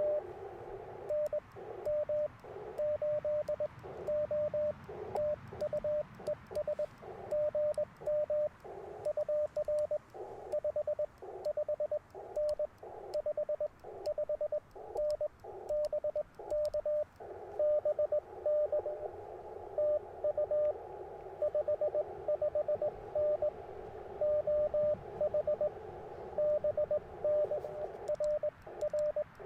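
Morse code (CW) from an Icom IC-705 transceiver: a steady tone of about 600 Hz keyed on and off in dits and dahs, sent and received in a contact exchange. Band noise hisses through the radio's narrow CW filter between and under the tones.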